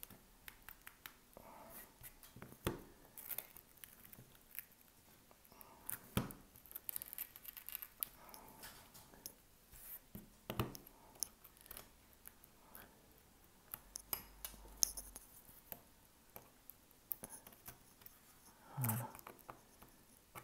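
Scattered clicks, taps and scrapes of a small hand tool working shards of the broken back glass off an iPhone 13, with a few sharper knocks and a duller thump near the end.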